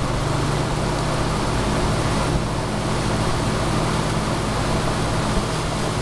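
Vintage ILG box fan running: a steady rush of air from the blades over a low motor hum.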